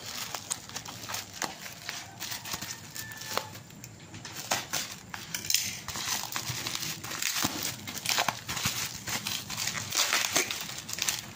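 Plastic parcel packaging crinkling and rustling as it is handled and opened, in irregular crackly bursts that get busier about halfway through.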